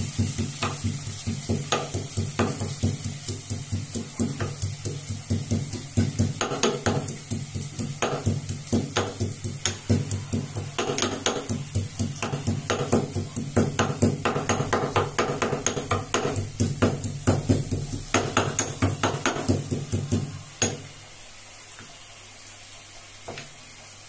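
Stone pestle pounding ginger and garlic cloves in a stone mortar: a rapid, steady run of knocks, about three a second. The pounding stops near the end.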